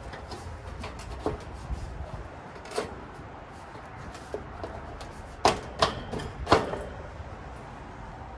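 Knocks and clunks from the top cover of an AC condenser unit being handled and seated by hand: a few scattered light knocks, then three louder ones a little past halfway.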